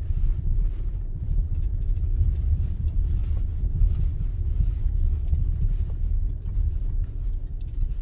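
Wind buffeting the microphone: a heavy, uneven low rumble.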